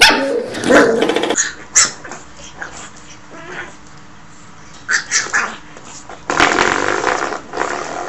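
Puppies batting spring door stoppers, the coiled springs twanging and rattling in short loud bursts, mixed with the puppies' small growls and yaps.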